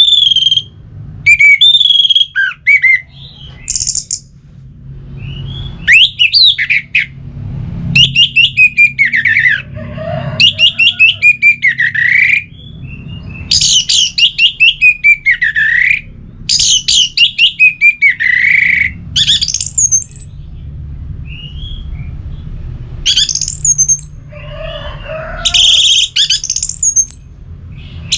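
Orange-headed thrush singing: a string of loud, varied phrases of rapid whistled notes and sweeping trills, each a second or two long with short pauses between, over a steady low hum.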